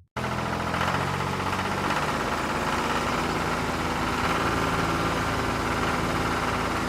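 An engine idling steadily. It starts abruptly and holds an even, unchanging level.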